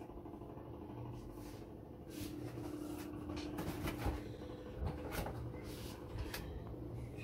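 Cardboard box and moulded pulp packaging being handled while cables are lifted out: rustling with a scatter of light knocks and clicks, over a low steady hum.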